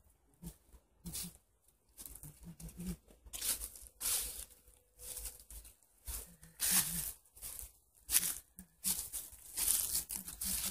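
Footsteps crunching and rustling through dry fallen leaves on a forest path, an irregular run of crackly steps over a low rumble.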